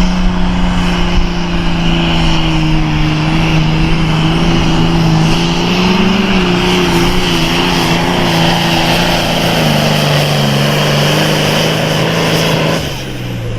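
Super Farm class pulling tractor's turbocharged diesel engine running flat out under load on the pull, its pitch holding steady. Near the end the pitch and loudness drop sharply as the engine comes off the throttle.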